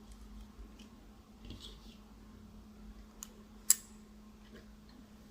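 Small parts of a 1/50 scale model low-loader trailer being handled and set in place: faint rustling and a couple of sharp clicks about three and a half seconds in, over a faint steady hum.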